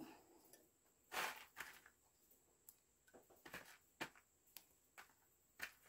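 Faint, scattered light taps and clicks, about seven over several seconds, the loudest about a second in. They come from handling malagueta chili peppers and a glass jar as the peppers are put into the jar.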